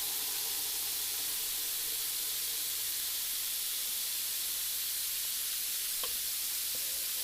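Steady sizzling of chicken, rice and aromatics sautéing in a pot, with a faint tap about six seconds in.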